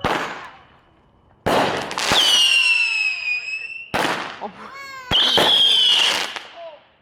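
Consumer firework cake firing its shots: about five sharp bangs in seven seconds, several of them trailed by a loud, high whistle that slides slightly down in pitch and fades over about a second.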